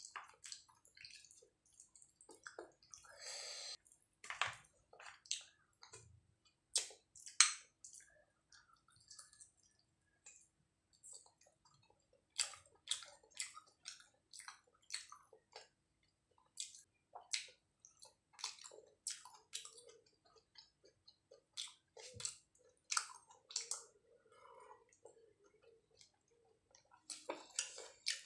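A person chewing mutton curry eaten by hand, with irregular wet mouth clicks and lip smacks.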